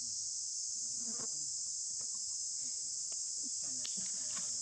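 Steady, high-pitched drone of insects in the trees, unbroken throughout, with a few faint clicks over it.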